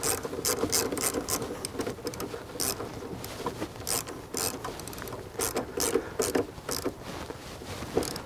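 Socket ratchet clicking in short runs, pausing between them, as it tightens the nut on the truck's negative battery terminal clamp.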